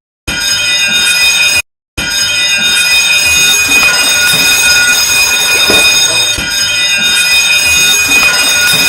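Ship's safety alarm ringing loudly and steadily. It breaks off for a moment right at the start and again about two seconds in, then rings without a break.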